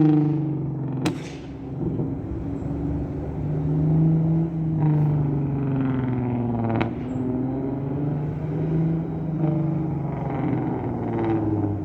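Exhaust of a 2009 Lexus IS350's V6 while driving, its pitch rising and falling slowly as the car speeds up and eases off. Two sharp clicks come through, about a second in and just past the middle.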